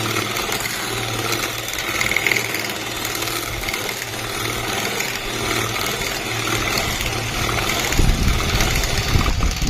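Electric hand mixer running steadily, whipping chilled cream into kulfi batter. Irregular low knocks come in about eight seconds in.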